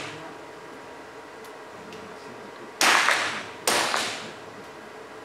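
Two .22 free-pistol shots about a second apart, each a sharp crack trailing off in the reverberation of an indoor range hall.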